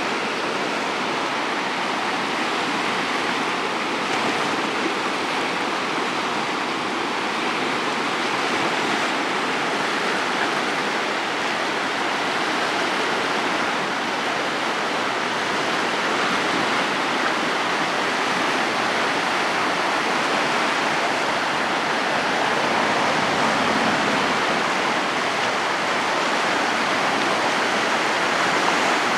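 Muddy floodwater rushing fast down a creek swollen by flash flooding, a steady, unbroken rush of water.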